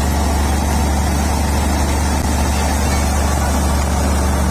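Sharif wheat thresher running under load as cut wheat is fed into it: a loud, steady mechanical drone with a constant low hum and a noisy rush over it.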